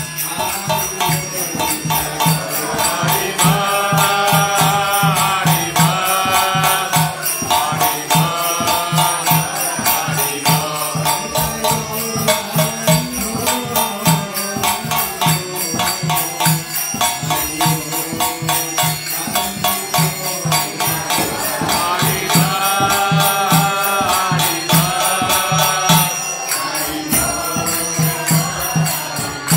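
A man singing a devotional chant in long repeated phrases, keeping a steady beat on small hand cymbals (kartals) that ring with each strike.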